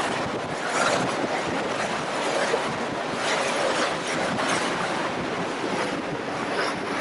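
Steady rushing noise of wind and water going past the side of a moving ship, swelling and easing unevenly.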